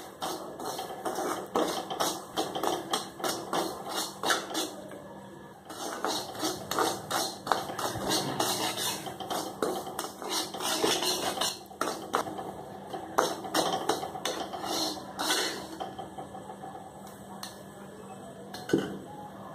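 Slotted metal spatula scraping and tapping against a wok as semolina is stirred and roasted dry, a quick run of scrapes and knocks, several a second, with a short lull about five seconds in. It thins out towards the end, with one sharp knock near the end.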